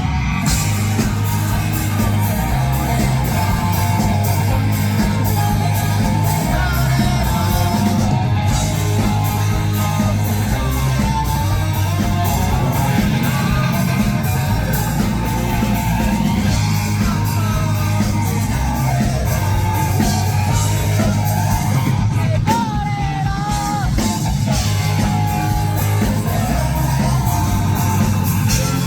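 Rock band playing live: a sung vocal over electric guitar, bass and drums, at a steady, full level throughout.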